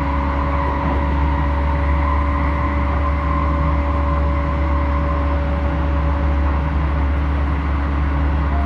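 Interior running sound of a Hokuso 7500 series electric train with Toyo IGBT-VVVF traction: a steady rumble of wheels on rail with a steady whine at an even pitch, the train holding its speed.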